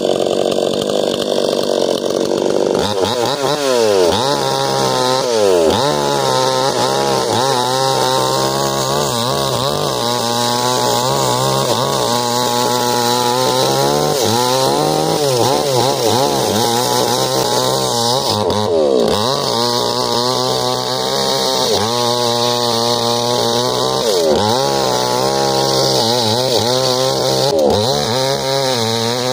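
Small chainsaw cutting into ironwood. Its engine pitch keeps dipping and climbing as the chain bogs down in the hard wood and picks up again.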